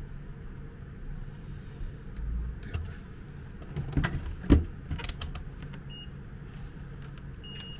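A few knocks and clicks as a newly fitted plastic plug and tools are set down on a desk, the loudest about four and a half seconds in, over a steady low hum.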